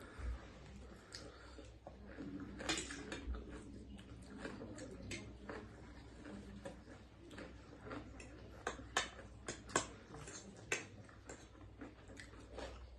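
People eating ramen noodles: quiet chewing and mouth sounds, with many short, sharp clicks and taps scattered throughout.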